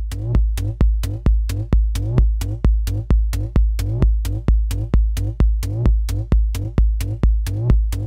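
Electronic drum machine loop at 120 BPM: a deep kick drum on every beat, about two a second, each hit with a sharp click and a short falling tone, over a synth bass line, repeating steadily.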